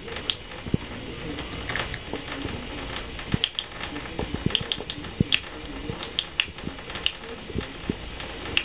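A cat drinking at a bathtub faucet, scooping water to its mouth with a paw and lapping: irregular soft ticks and small splashes, about one or two a second.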